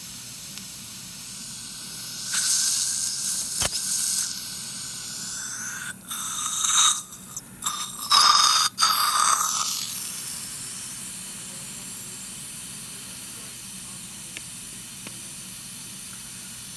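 Surgical suction hissing steadily, with louder, irregular sucking stretches about two seconds in and again from about five to ten seconds in. A single sharp click near four seconds.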